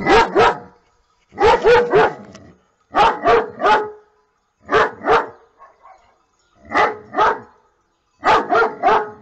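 German Shepherd barking in six quick bursts of two to four barks each, with short pauses between the bursts.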